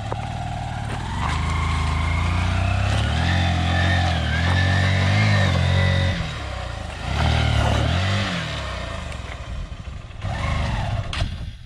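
Motorcycle engine being ridden off-road, its note rising and falling with the throttle: a long rev-up that holds for several seconds, then a second, shorter rise, easing off near the end.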